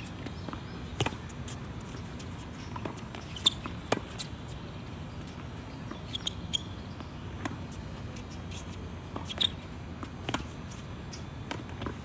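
Tennis rally: sharp pops of racquets striking the ball and the ball bouncing on the court, every couple of seconds at an irregular pace, some in quick pairs.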